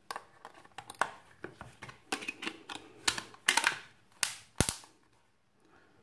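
Hard plastic clicks and taps of a Samsung B355E feature phone being put back together by hand: the battery pressed into place and the back cover snapped on. It is a quick, irregular run of clicks, with a firmer snap after about four and a half seconds.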